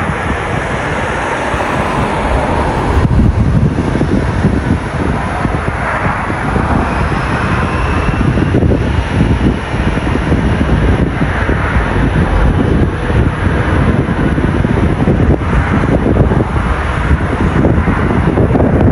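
Twin-engine jet airliner's engines at high power, heard from behind as it rolls away down the runway for takeoff: a loud steady roar with a faint whine rising about a third of the way in, and wind buffeting the microphone.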